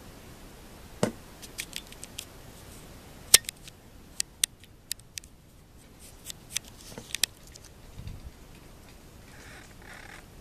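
A scattered series of sharp clicks and taps, about a dozen at irregular intervals, the loudest a little over three seconds in, with a dull low thump about eight seconds in.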